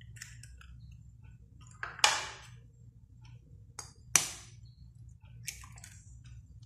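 Eggs being cracked over a bowl of raw chicken pieces: two sharp knocks about two seconds apart, the second as an egg is struck open, with small clicks of shell handling between them.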